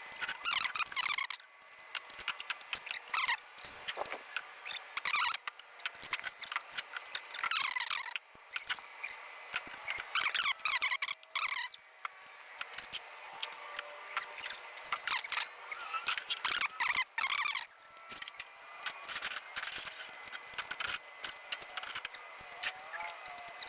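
Fast-forwarded sound of work in the garage: voices and handling noises sped up into quick, high-pitched squeaks and chirps, with scattered clicks.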